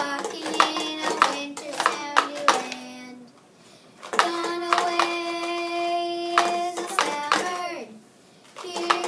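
A high voice singing vocal sound effects, with sharp clicks scattered through. It starts with short pitched notes stepping downward, goes quiet briefly, then holds one long steady note from about four seconds in that drops off near the end.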